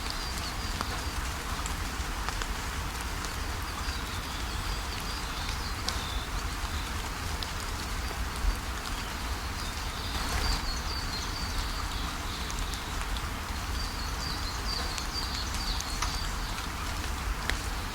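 Steady rush of falling water from a waterfall, with birds chirping in short runs over it every few seconds.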